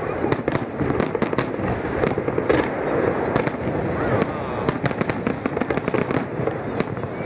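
Fireworks display: aerial shells bursting in a dense, continuous run of bangs and crackles, several reports a second, busiest about five seconds in.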